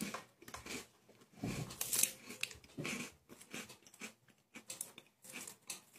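A crunchy wrapped biscuit being bitten and chewed, in irregular crackly crunches, with some crinkling of its twisted wrapper.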